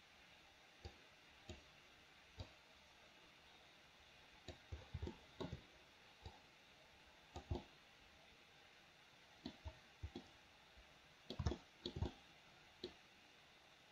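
Faint, irregular clicking of a computer mouse and keyboard keys, with clicks bunched in quick runs about five seconds in and again near the end.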